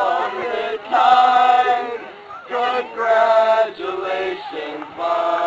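A group of mostly male voices singing together in unison, with long held notes and short breaks between phrases.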